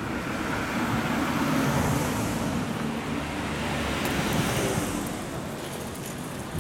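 Road traffic on the street alongside: tyre and engine noise of passing cars, swelling and fading twice as vehicles go by.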